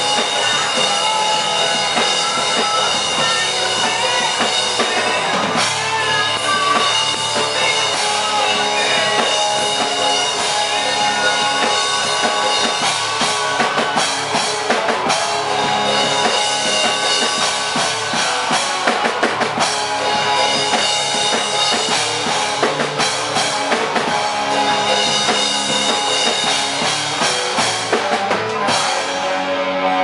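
A live band playing loud, driven by a full drum kit with bass drum and snare under guitar. Near the end the drums drop out and the guitar rings on.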